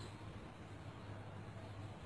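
Faint, steady background hiss with a low hum underneath; no distinct event.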